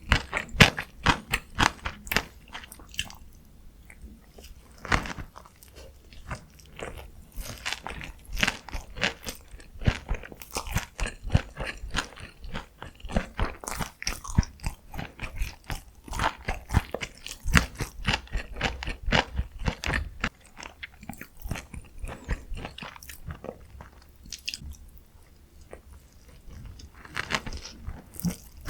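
Close-miked mouth sounds of eating: bites and chewing, with dense runs of sharp crunchy clicks that ease off briefly a few times.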